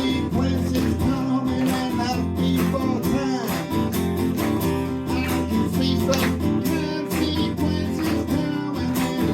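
Live rock band playing an instrumental passage of a song, with guitars, a bass line and drums.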